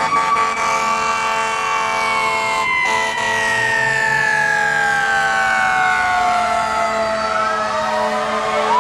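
Siren wailing: one long tone that falls slowly over several seconds and begins to rise again near the end, over steady held tones.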